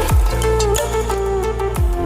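Electronic background music: a melody over a beat, with two deep bass drum hits that drop in pitch, one at the start and one near the end.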